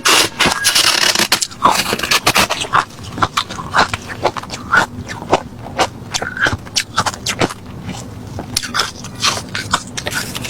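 Close-up crunching and chewing of refrozen crushed ice: a dense burst of crunches at the start, then a steady run of separate sharp crunches.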